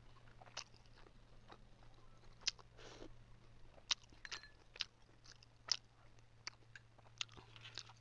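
Close-miked eating: a steel spoon clinks sharply against glass bowls about nine times, unevenly spaced, between soft chewing sounds.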